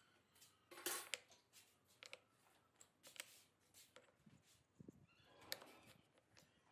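Faint, scattered light knocks and clicks of small cut wooden blocks being handled and set down on a wooden saw table, with a soft rub of wood sliding on wood. The strongest clicks come about a second in.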